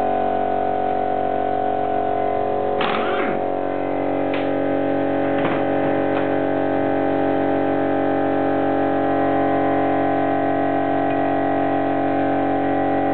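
Steady hum of several fixed tones, with a few short metal clinks about three to six seconds in as clutch parts are handled on the engine's flywheel.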